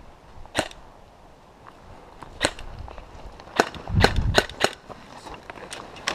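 Airsoft guns firing single shots: about seven sharp cracks at irregular intervals, several close together about four seconds in.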